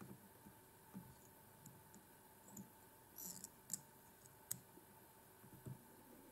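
Near silence with faint scattered clicks and light taps from fly-tying handling: thread is being wound from a bobbin to tie red latex rib onto a hook shank. There is a brief rustle just past three seconds, followed by two sharper ticks.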